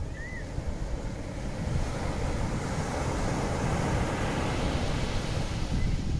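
Wind buffeting the microphone over the steady wash of surf, with one short high chirp just after the start.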